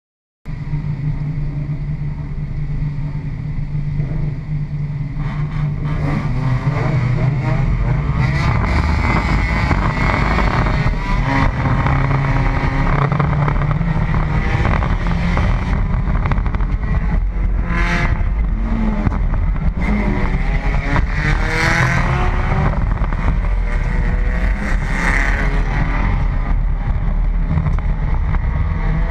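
In-cabin sound of a Pontiac Sunfire enduro race car's engine. It runs at a steady pitch for the first few seconds, then revs up and down over and over as the car accelerates on track. A few brief loud noises come through in the second half.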